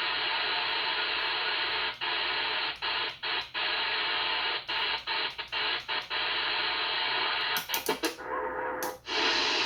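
Static hiss from an AM CB radio receiver on an open channel, broken by a series of short dropouts and clicks in the middle, then a brief steady tone near the end before the hiss returns.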